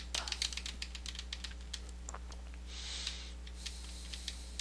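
Light, irregular clicks of computer keys: a quick run about half a second in, then scattered taps, with a brief soft hiss about three seconds in, over a steady low electrical hum.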